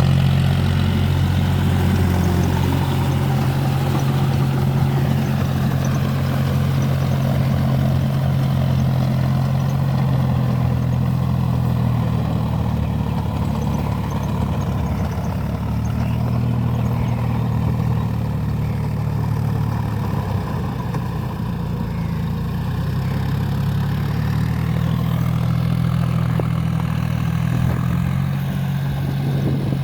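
John Deere four-wheel-drive tractor's diesel engine running steadily while ploughing in deep mud, its pitch sagging a little midway and picking up again.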